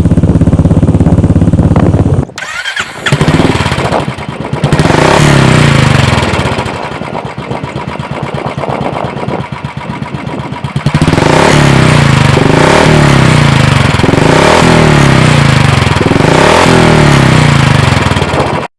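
Royal Enfield single-cylinder motorcycle engine running through an aftermarket Globe Cobra silencer, with a bassy thump. It idles steadily, then after an abrupt break it is revved and ridden, its pitch rising and dropping again and again as it pulls through the gears.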